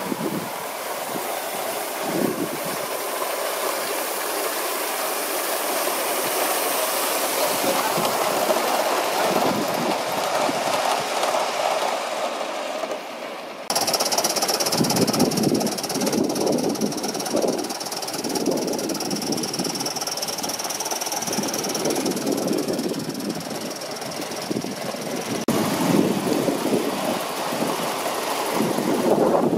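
Gauge 1 live steam model locomotive running, with a steady hiss and irregular puffs of exhaust; the sound changes abruptly about halfway through.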